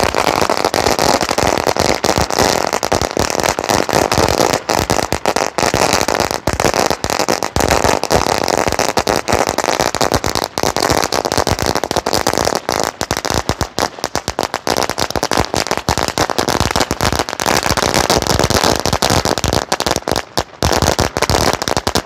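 A Cock brand 10,000-cracker firecracker string going off on the ground in a continuous, dense run of rapid bangs.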